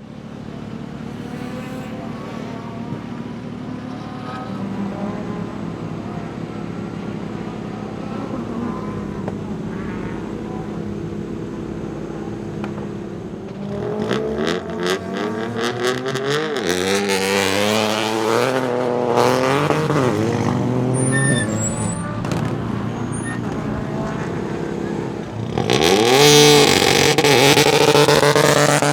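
Peugeot 208 Rally4's 1.2-litre turbocharged three-cylinder engine idling steadily, then revved in repeated blips with sharp exhaust crackles and pops. Near the end it revs hard, rising in pitch, with a dense burst of crackling.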